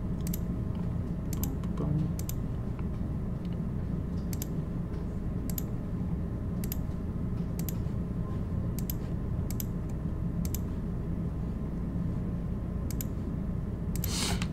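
Scattered single clicks of a computer mouse and keyboard, coming every second or so over a steady low hum, with a short swishing rustle near the end.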